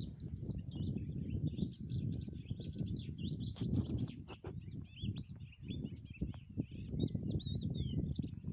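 Several small birds chirping and twittering continuously, many quick up-and-down notes, over a steady low rumbling noise.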